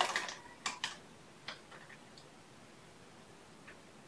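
Light clicks and taps from a kitten moving about: a quick cluster in the first second, then a few faint single clicks.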